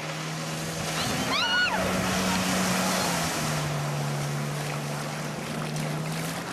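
Kawasaki STX-15F jet ski's four-stroke engine running at speed as it passes close by, over the hiss of its spray and wake. The engine note drops in pitch a little past three seconds in as it goes by. A brief high-pitched cry comes about a second and a half in.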